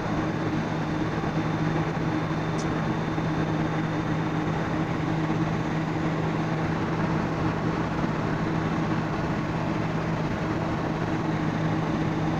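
ZAZ Tavria heard from inside the cabin at about 110 km/h on the highway: a steady engine drone under an even rush of tyre and headwind noise. The engine is still being run in.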